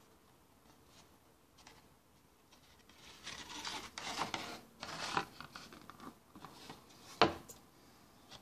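Thick cardboard board-book page being turned by hand, the stiff board rubbing and scraping against a hard counter for a few seconds. A single sharp tap follows near the end.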